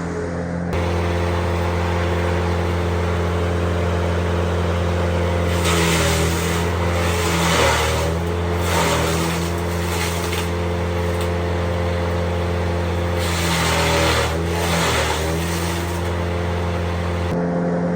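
A small engine-driven farm machine running steadily. Twice, for a few seconds each, its pitch sags under load while a loud rushing hiss rises, as material is fed through it.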